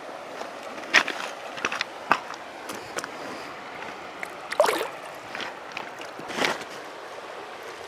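Steady flow of a shallow stream, with a handful of short splashes and sloshes as a small fish is released by hand into the water; the biggest splashes come about a second in, just before five seconds in, and near six and a half seconds.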